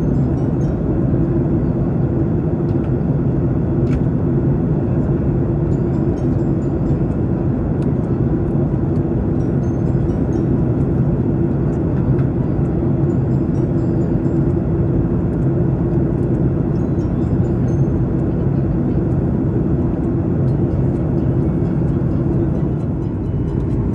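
Steady cabin drone of a jet airliner: engine and airflow noise with a low, even hum.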